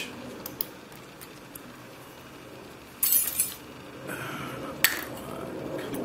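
Steel lock-picking tools clinking against a padlock and each other: a few light clicks, a brief metallic rattle about three seconds in, and a sharp click a little before the end.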